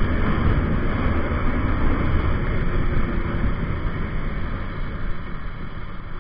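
Motorcycle riding at speed, heard from an onboard camera: wind rushing over the microphone with the engine and tyres underneath. It grows gradually quieter toward the end.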